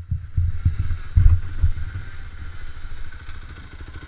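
KTM enduro motorcycle engine idling with an even, rapid pulse, with two louder surges in the first two seconds.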